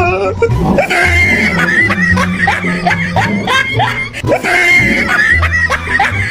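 Background music with a steady low beat, mixed with a person laughing and shrieking in short repeated bursts.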